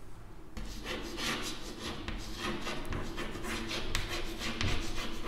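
Chalk scratching and tapping on a chalkboard in a quick run of short strokes as a word is written, starting about half a second in.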